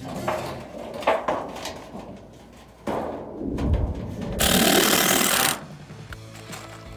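Cordless drill driving a screw into a plywood panel, one loud burst of a little over a second.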